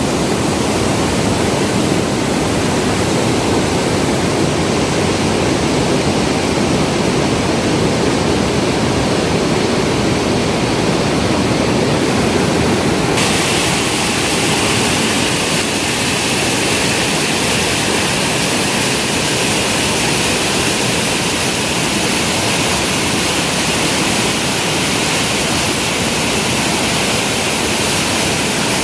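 Waterfall: a steady, loud rush of falling water, turning brighter and hissier about halfway through.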